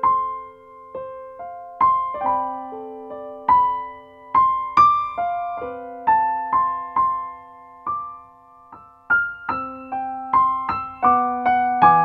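Background music only: a gentle piano melody of single struck notes, each ringing and then fading, coming about one or two a second.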